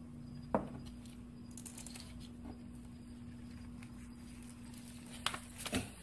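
A quiet, steady low hum with a few faint clicks and knocks: one about half a second in and a couple near the end.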